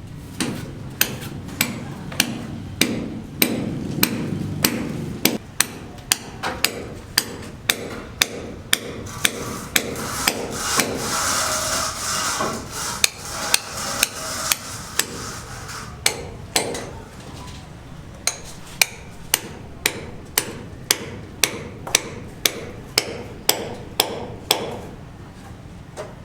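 Hand hammer striking repeatedly at a steady pace, about three blows every two seconds. A hissing noise rises under the blows in the middle of the stretch and then fades.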